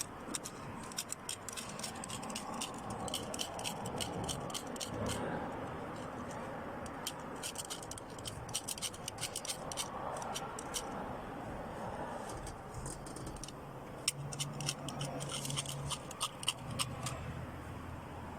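Clusters of small, sharp clicks and snips from hand tools working on a car's wiring harness, coming in quick runs several times over a steady workshop background noise.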